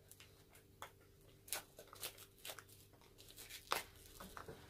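Faint, scattered crinkles and small tearing sounds of a crinkly blind-bag packet being picked and pulled open by hand.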